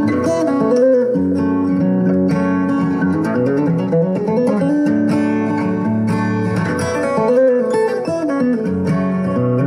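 Background music: acoustic guitar playing a melodic instrumental.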